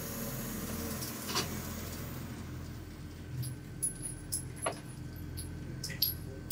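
Motorized target carrier running along an indoor range's overhead track, pulling a paper target forward: a steady motor hum, with light clicks and rattles in the second half.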